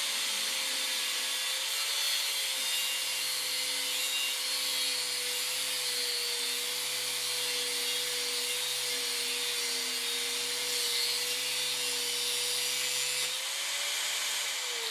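Angle grinder with a thin cut-off disc cutting through the steel locking pin of a car steering lock: a steady motor whine over a grinding hiss. About 13 seconds in the cut finishes, the motor note rises briefly as the load comes off, then starts to wind down.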